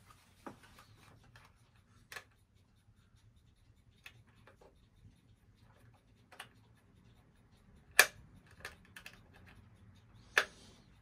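Irregular light clicks and taps of hands handling a small cuckoo clock case, fingering its roof and the little cuckoo door, with the sharpest click about eight seconds in and another near the end. A faint steady hum lies underneath.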